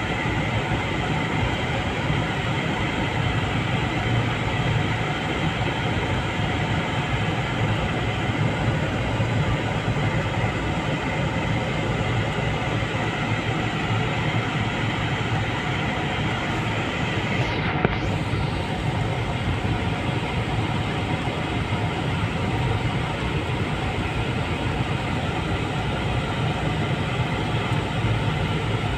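Steady rumble and hum of a car driving slowly, heard from inside the cabin: engine and tyre noise with no gear changes or revving. A single short click about two-thirds of the way through.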